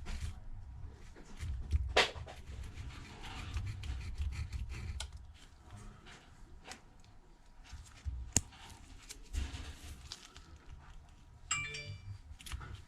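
Small metal blade scraping and ticking against a Samsung Galaxy A20s's frame, clearing away leftover screen glass and adhesive, in irregular scratches and clicks. Sharper clicks come about two seconds in and again past the middle, and a short ringing clink near the end.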